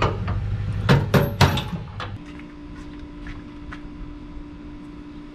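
Sharp metal clanks and knocks from working on a travel trailer's hitch and tongue jack, three loud ones close together about a second in. Then a quieter stretch of faint scattered clicks over a steady hum.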